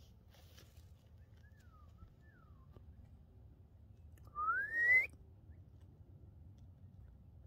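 Two faint short whistles falling in pitch, then about four seconds in a louder whistle rising steadily in pitch for under a second, over a low background hum.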